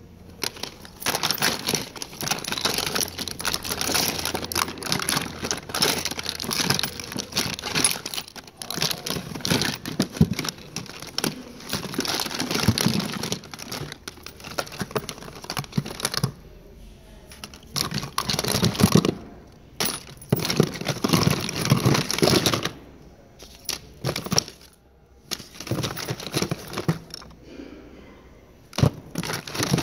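Small plastic-packaged cosmetics clattering and rattling against each other as they are handled in a box, with crinkling of packaging, in irregular spells broken by a couple of short pauses.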